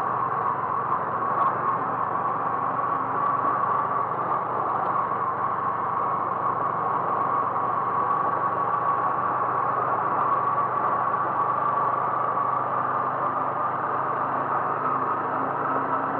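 A vehicle running steadily on the move: a constant engine hum mixed with road noise, with no change in speed.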